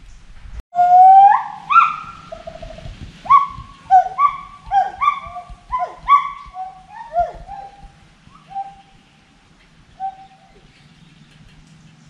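Gibbon song: a series of loud whooping calls that slide upward in pitch, beginning about a second in, coming quicker and shorter through the middle, then thinning out to a few single notes near the end.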